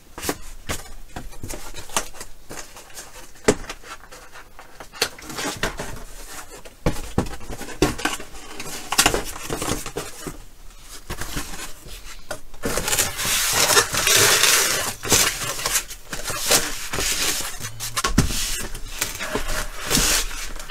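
Hands-on handling of a camper window screen and other objects on a table: scattered clicks, knocks and clatter as things are set down and moved, with a few seconds of dense rustling or scraping a little past the middle as something is slid under the screen.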